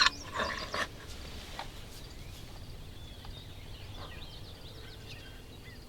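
Faint chirps and twitters of small songbirds over a steady outdoor background hiss.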